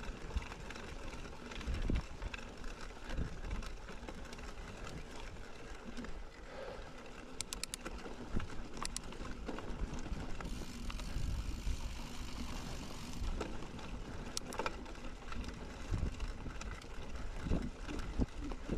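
Mountain bike being ridden over rough ground: tyres rolling with irregular knocks and rattles over a steady low rumble, and a few sharp clicks about halfway through.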